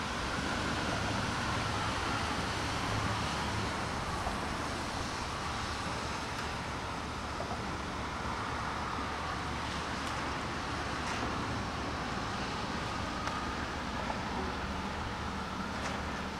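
Norfolk Southern freight train's three lead diesel locomotives approaching and rolling past, a steady engine rumble mixed with wheel noise on the rails.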